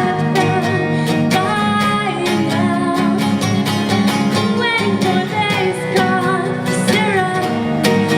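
Acoustic guitar strummed under a woman singing a pop-rock song.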